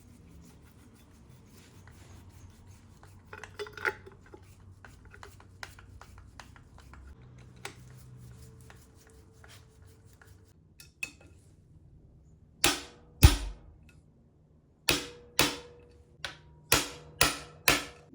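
Metal parts and tools clinking and being set down, then a run of about eight sharp metallic knocks, each with a short ring, in the last six seconds.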